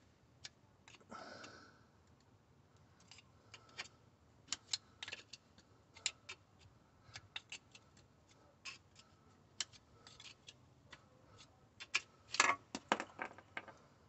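Steel crankshaft timing-belt sprocket of a VW Crafter 2.0 TDI being wiggled back and forth on the crankshaft nose, giving irregular sharp metallic clicks and ticks. A louder clatter comes about twelve seconds in, as the sprocket works free.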